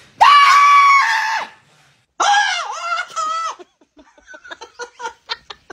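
A person screaming suddenly to startle a dog, twice: two loud, high-pitched, held screams about a second long each, followed by a run of short sounds that come faster and faster.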